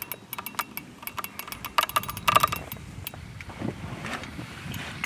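Fishing reel ratcheting in rapid clicks while a catfish is fought from the boat, with a louder, faster spurt of clicking about two seconds in.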